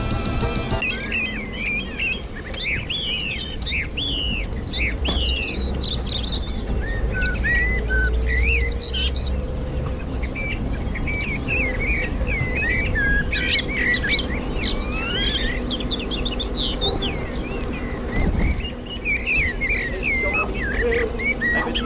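Many songbirds chirping and singing, short whistled calls overlapping one another, over a low steady rumble.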